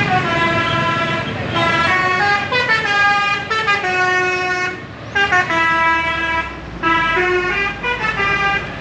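Tour bus's telolet basuri musical horn playing a tune: a run of loud horn notes stepping up and down in pitch, broken by two short pauses about five and seven seconds in.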